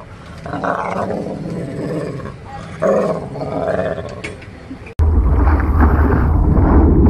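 A pit bull play-growling in uneven pitched bursts while rolling on its back. About five seconds in, this cuts off sharply into a loud steady rush of wind and water on an action camera riding a surfboard.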